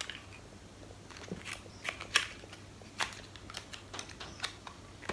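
Small plastic lip balm containers being handled and opened: scattered light clicks and short rustles.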